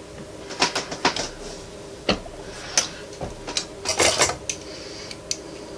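Sharp metallic clicks and clinks of a freshly seated 6.5 Grendel cartridge and metal reloading tools being handled at a reloading press. It comes as a string of irregular ticks, loudest in a cluster about four seconds in.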